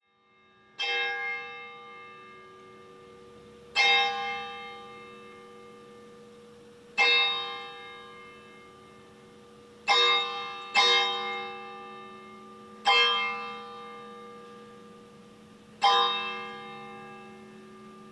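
A church bell tolled seven times, mostly about three seconds apart with two strokes close together near the middle; each stroke rings on and dies away.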